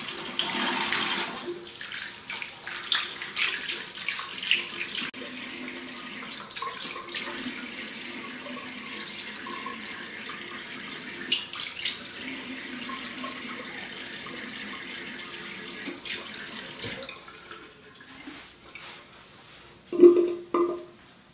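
Tap water running into a bathroom sink while a razor scrapes through shaving cream and stubble in short, repeated strokes. The running water stops about three-quarters of the way through, and a brief louder sound comes near the end.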